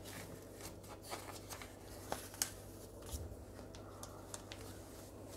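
Pages of a paper catalogue being riffled and leafed through by hand: faint paper rustles and flicks, with two sharper flicks a little past two seconds in.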